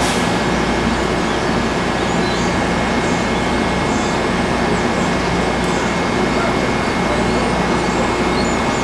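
NJ Transit Arrow III electric multiple-unit train standing at the platform, its onboard electrical equipment and blowers running with a steady hum and a thin steady high whine.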